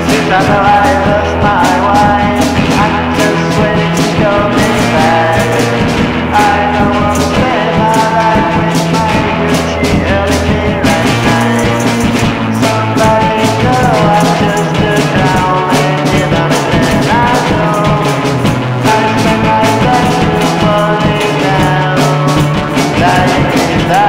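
Psychedelic rock song: a band recording with a steady drum beat, bass and guitar.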